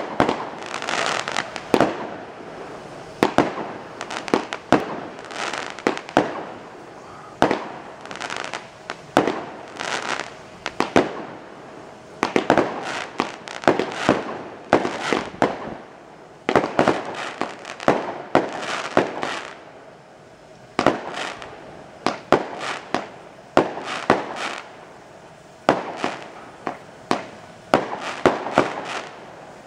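Fireworks display: aerial shells bursting one after another in sharp bangs, at times several a second, with a crackling hiss of sparks between the reports.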